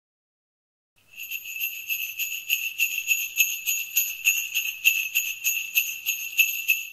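Jingle bells shaken in a steady rhythm, about three shakes a second, starting about a second in.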